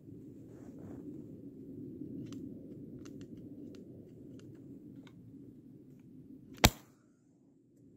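One sharp shot from a 3D-printed airsoft replica RGS-50M grenade launcher firing its pyrotechnic charge, near the end. Before it, a few faint clicks over a steady low background hiss.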